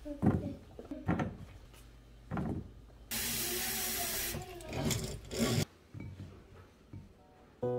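Cherry tomatoes dropping one after another into a glass bowl with small knocks, then tap water running into the bowl for about two and a half seconds, cutting off suddenly.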